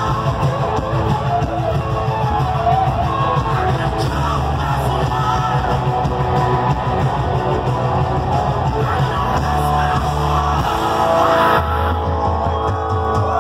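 Live rock band playing loudly: electric guitars, bass and drums, with sung vocals.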